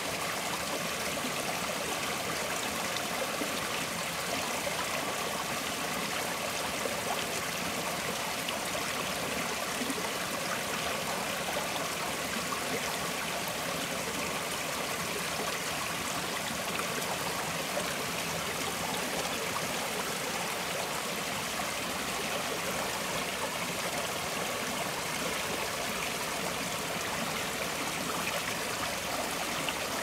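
Gentle forest stream flowing steadily, an even, unbroken trickling rush of water.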